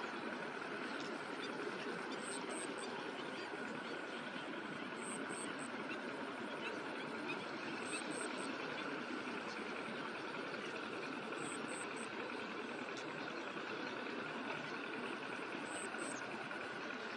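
Tractor engine running steadily while plowing, an even drone with no change in load. A short, high triple peep recurs every few seconds over it.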